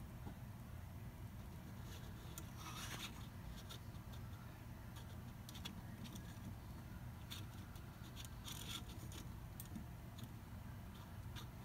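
Faint scratching and clicking of plastic as a LEGO minifigure is handled and turned on its stand, in two short bursts, over a steady low room hum.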